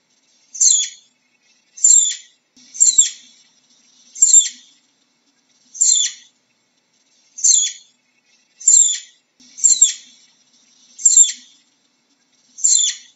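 Flying squirrel giving a series of short, high-pitched chirps, each one sliding down in pitch, repeated roughly once every one to one and a half seconds, about ten in all.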